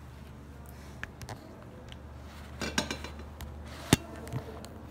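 Cheese bread being handled from its cardboard box and bitten into at a glass tabletop: scattered light knocks and clinks, a small cluster near three seconds in, and one sharp click, the loudest, about four seconds in.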